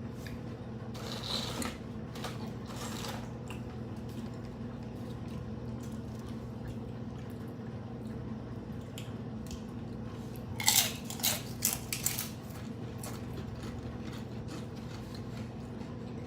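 Crunchy hard-shell tacos being bitten and chewed, with a run of loud crunches about ten to twelve seconds in, over a steady low hum.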